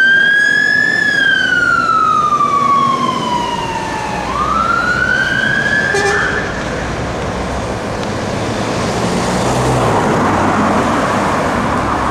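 Fire engine siren on a slow wail: one long rise and fall, then another rise that cuts off about six seconds in. After it, the engine and road noise of the fire engines driving away.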